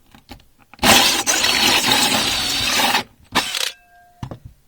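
Battery drill spinning a 3.5-inch hole saw into an RV floor: a loud cutting run of about two seconds starting about a second in, then a shorter burst.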